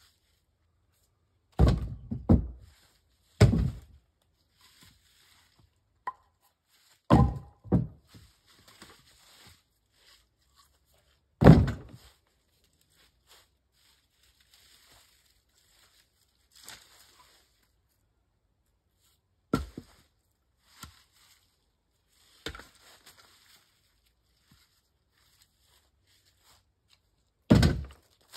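Heavy thuds and knocks of wood being struck, about nine of them at irregular gaps of several seconds, some in quick pairs.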